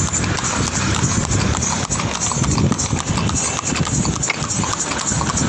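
Horse hooves clip-clopping on an asphalt road as a horse walks along, a quick run of hard knocks.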